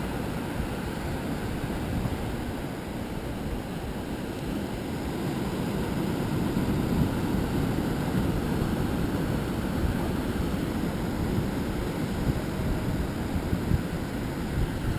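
Wind buffeting the microphone: a steady low rumble that swells slightly a few seconds in, with surf washing on the beach behind it.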